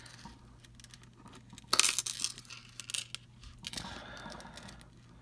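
A metal jewelry chain clinking and scraping as it is handled and scratched for a silver test, with a sharp clatter a little under two seconds in and a scratchy rub near the end.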